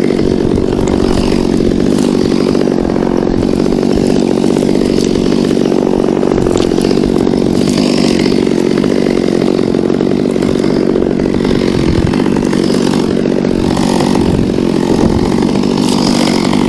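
Chainsaw running steadily at high speed, cutting through a section of tree trunk.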